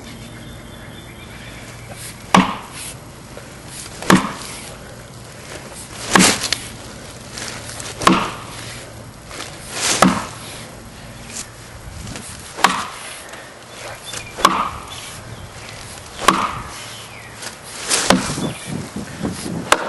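Axe blows chopping into a pignut hickory log, about ten sharp strikes roughly two seconds apart.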